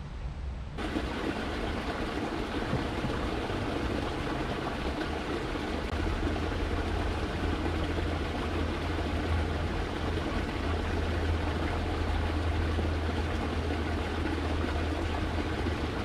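Small creek water running steadily, a continuous rushing that starts suddenly about a second in, with a steady low rumble underneath.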